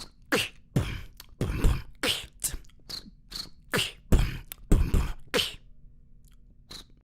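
A beatboxer performing a beat with the mouth: deep kick-drum thumps under sharp snare and hi-hat clicks in a quick rhythm. The beat stops about five and a half seconds in, and the sound cuts off to silence near the end.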